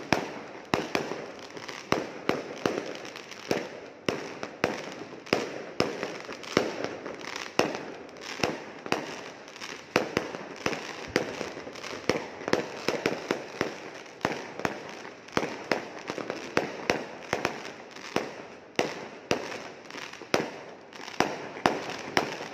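Aerial fireworks going off in numbers: loud bangs one or two a second, with a dense crackle of smaller pops between them.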